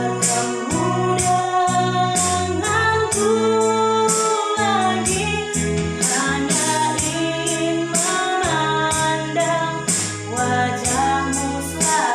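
Worship music: a female voice singing a slow melody over keyboard and bass, with a steady drum beat.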